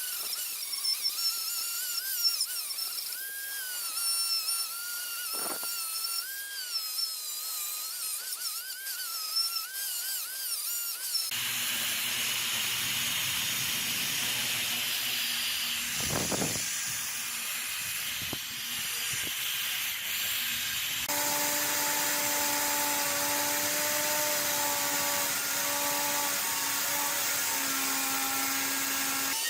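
Power tools running in three cut-together clips: first a high whine that wavers up and down with the load, then a noisier stretch, then a steady motor hum.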